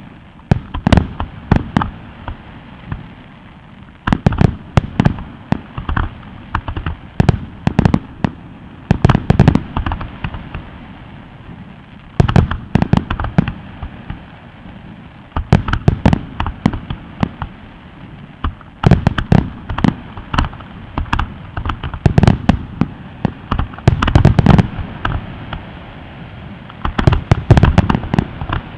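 Aerial firework shells bursting in a display: clusters of sharp bangs every few seconds, each volley followed by a low rumble, with quieter spells between.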